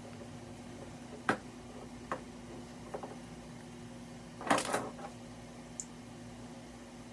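A few light clicks and knocks from objects being handled, the loudest a short cluster a little past halfway, over a steady low hum.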